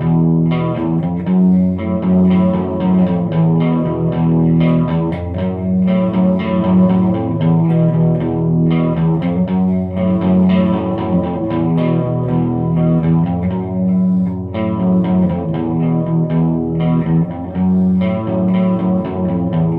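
Electric guitar played through a Line 6 POD Pro amp modeler, with continuous picked notes and chords.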